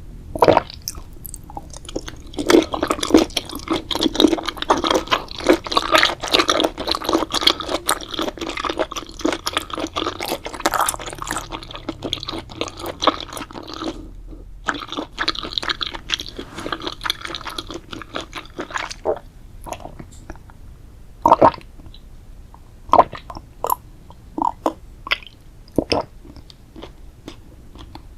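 Close-up ASMR eating: food being bitten and chewed, with a dense run of crisp crackling crunches for about twelve seconds, a brief pause, then slower, scattered crunches and wet, squishy chews.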